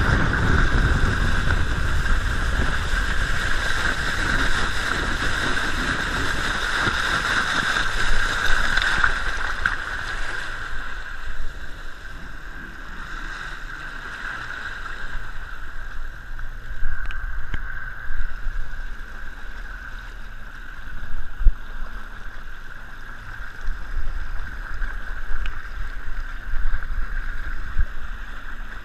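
Water rushing and splashing along the hull of a Triton TR186 bass boat running across a lake, heard from low on the hull's side, with wind and a steady high hum. It gets quieter about ten seconds in, and separate splashes stand out after that.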